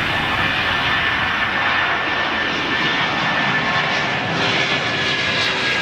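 Airbus A330 twin-engine jet airliner at takeoff thrust as it lifts off and climbs away. A steady, loud jet noise with a thin, steady whine from the engines.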